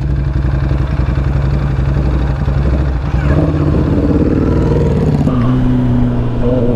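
Kawasaki ZX-10R's inline-four engine running, heard from the saddle. Its pitch rises and falls in the middle, then settles into a steady note for the last second or so as the bike pulls away.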